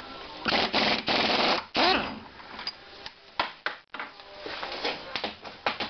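Impact wrench hammering in short bursts on a MacPherson strut's top shaft nut over the first two seconds, breaking the nut loose. Scattered light clicks and taps follow.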